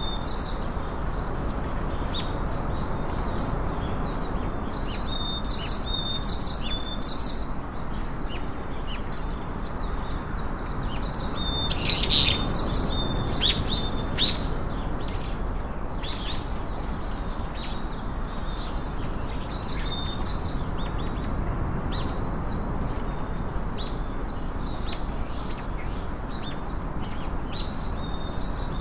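Wild songbirds chirping, with many short high calls throughout and a few louder ones about twelve to fourteen seconds in, over a steady low background rush.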